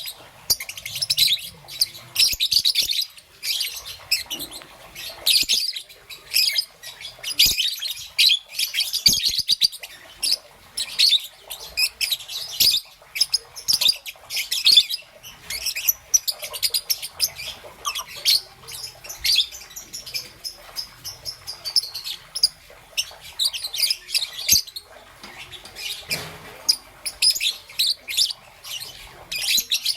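Young peach-faced lovebird chirping in rapid, high-pitched runs without letup, with a few short clicks among the calls.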